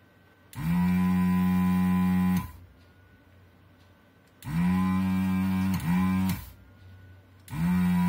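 Pro'sKit SS-331H desoldering gun's vacuum pump switched on in four bursts, the first the longest at about two seconds and the last two brief. Each burst is a steady low hum that rises in pitch as the pump starts. It is sucking molten solder out of the tactile switches' through-hole joints.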